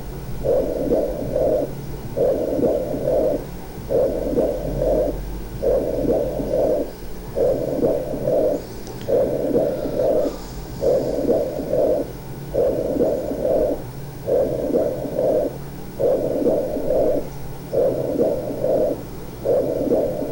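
Whispered counting of 'uno, dos, tres' heard through a stethoscope's diaphragm on the chest over a pleural effusion. It comes through muffled but intelligibly, as whispered pectoriloquy (pectoriloquia áfona): the fluid conducts the whisper well. The whispered bursts repeat about a dozen times, a little under two seconds apart, over a low steady hum.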